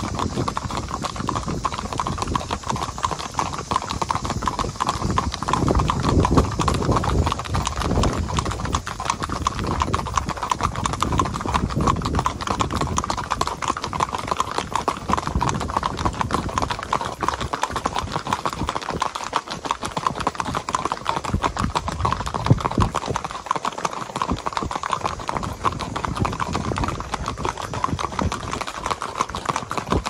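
Hoofbeats of a gaited molly mule clip-clopping on a concrete street as it is ridden at a steady, even gait, the strikes running on without a break.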